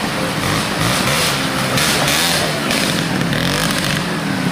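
Trials motorcycle engine running and being blipped on the throttle, its pitch rising and falling repeatedly as the bike works over rough ground.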